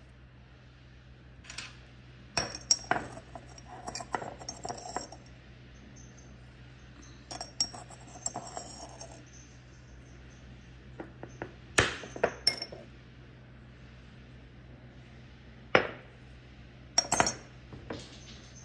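Kitchenware being handled: glass, dishes and metal utensils clink and knock now and then, with a few sharp knocks standing out near the middle and end. A steady low hum runs underneath.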